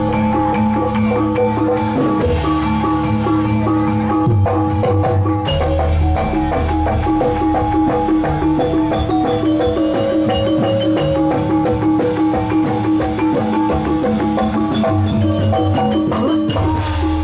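Gamelan music for a jatilan horse dance: metal mallet instruments play a stepping melody over steady drumming, with sustained tones beneath.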